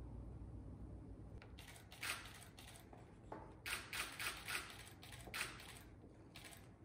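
Marker pen writing on a sheet of paper: a faint run of short scratching strokes, starting about a second and a half in.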